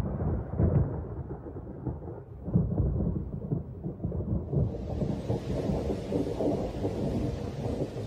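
Thunder rumbling in long rolls, loudest near the start and again a couple of seconds in. About halfway through the steady hiss of rain sets in beneath it.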